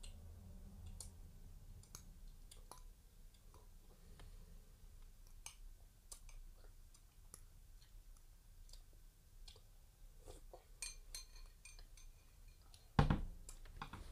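Faint, scattered small clicks and taps, with a loud thump about thirteen seconds in.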